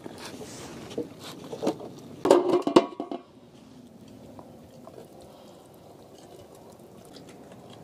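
Water poured off a metal pot of boiled conch shells, the shells knocking against the pot, loudest about two seconds in. After about three seconds it goes quieter, leaving only faint clicks as a metal pick works inside a conch shell.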